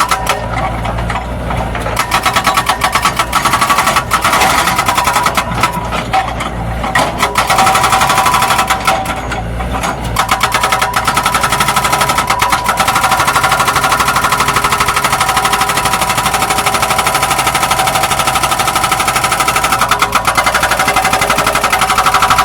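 Zoomlion excavator at work: a loud, rapid, rhythmic clatter of knocks over a steady whine.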